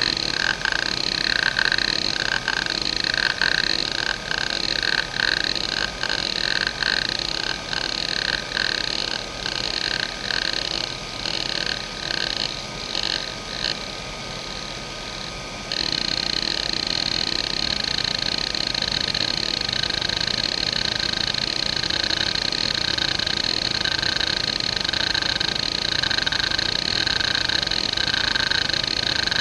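1992 JVC JDE2042M10-1 40 MB 2.5-inch IDE hard drive, its head actuator seeking back and forth in the sweeping patterns of the hdmotion program. The seek chatter swells and fades in a regular rhythm that speeds up and grows quieter. About halfway through it changes abruptly to a louder, denser chatter swelling about once a second. The drive is in good health.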